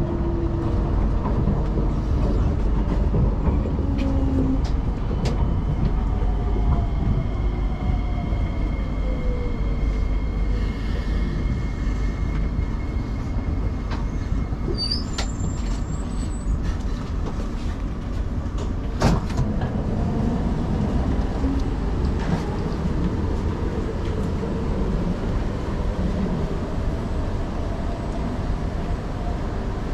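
Metro train braking into a station, its motor whine falling in pitch over several tones, then standing with a steady low rumble. About halfway there are a few short high tones, and a sharp click comes a few seconds later.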